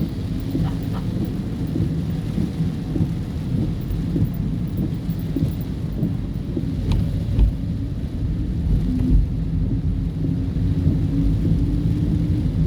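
Steady low rumble inside a moving car's cabin in rain: engine and road noise with rain on the car's body.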